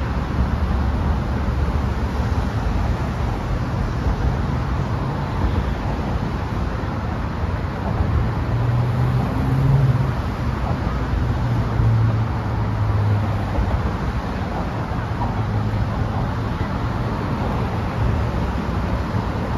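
Steady road traffic noise from cars crossing the Brooklyn Bridge's roadway below the pedestrian walkway, with a low engine hum that swells about halfway through.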